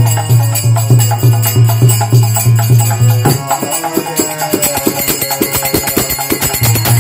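Kirtan music: a harmonium and a man singing over a mridanga drum played in a quick, steady rhythm, with hand cymbals jingling. The mridanga's deep bass strokes drop out about halfway through and come back near the end.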